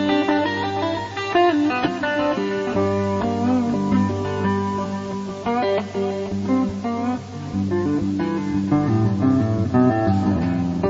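Background music: plucked guitar playing a melody over held bass notes.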